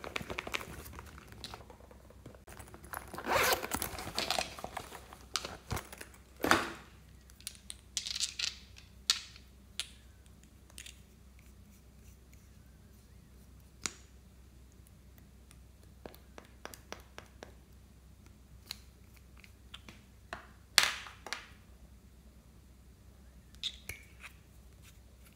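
Hands handling small makeup items and their packaging. About three seconds in there is a stretch of crinkling and rustling, followed by scattered clicks and taps as caps and small bottles are opened.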